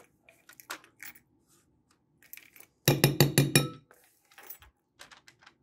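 Kitchen utensil clinking against dishes: scattered light taps, then a quick run of loud clicks and clinks about three seconds in.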